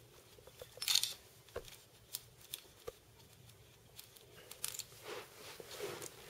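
Small clicks, taps and scrapes of an Allen key and metal parts being handled on the rifle, with a short louder rasp about a second in and softer rubbing near the end.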